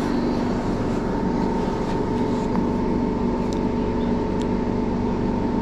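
Steady mechanical hum of the mobile grooming van's running equipment, with several fixed tones in it. A few faint clicks in the second half match dog nail clippers cutting.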